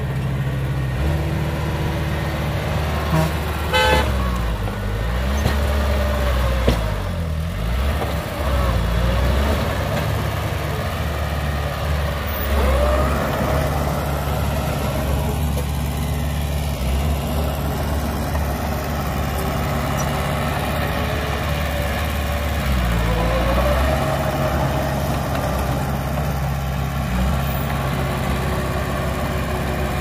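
Heavy diesel engines of a bulldozer and dump truck running at work, the engine note rising and falling several times, with a brief sharp sound about four seconds in.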